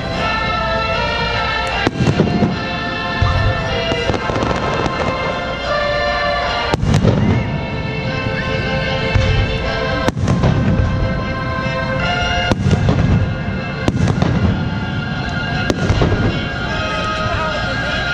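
Aerial fireworks shells bursting over music, several sharp bangs a couple of seconds apart, each followed by a low rumble.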